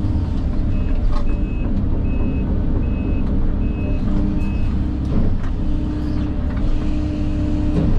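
Diesel engine of a heavy earthmoving machine running under load, its backup alarm sounding six short beeps starting about a second in, as the machine backs up.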